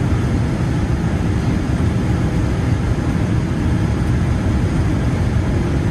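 Steady low cabin rumble inside a Boeing 787-9 Dreamliner taxiing on the ground, its engines at idle.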